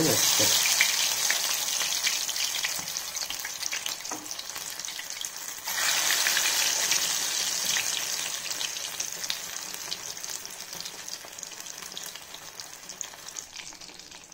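Marinated chicken drumsticks deep-frying in hot oil: a loud sizzle as the first piece goes in, a second surge about six seconds in as another drumstick is added, then the crackling slowly dies down as the oil settles around the chicken.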